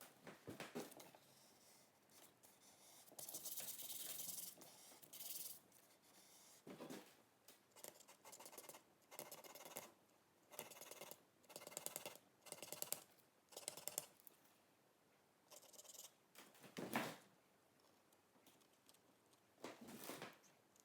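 Faint, short scratchy strokes of a paintbrush dragged across a gessoed board, coming in quick irregular runs with brief pauses between and one louder stroke late on.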